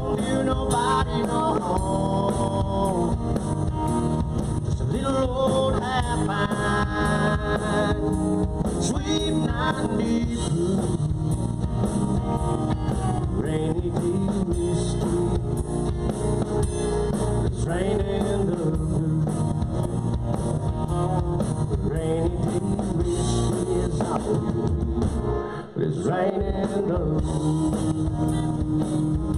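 Live band playing an instrumental passage: a lead guitar with bent notes over bass and a drum kit keeping a steady beat, with a momentary break near the end.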